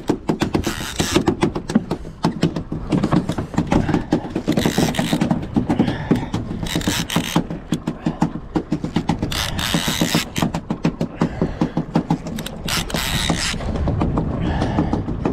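A fishing reel clicking rapidly and almost without a break as it works under the load of a hooked fish on a bent rod.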